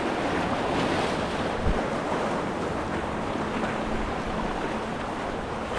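Steady rush of river whitewater through a rapid, with one low thump about two seconds in.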